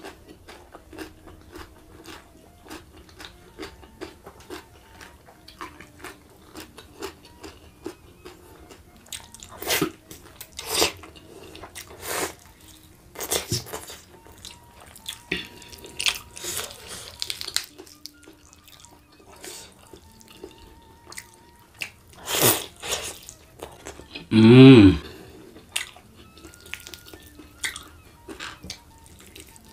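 Close-miked eating sounds of a man eating rendang chicken and rice with his hands: wet chewing, lip smacks and sucking, with several louder slurps and bites. About twenty-four seconds in comes a short, loud throaty sound that drops in pitch.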